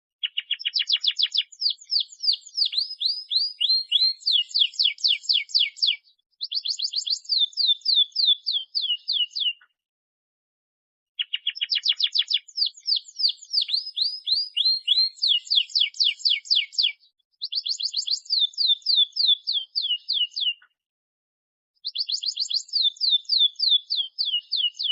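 Domestic canary singing long, rapid trills of repeated sweeping notes, phrase after phrase, with short pauses about ten and twenty-one seconds in.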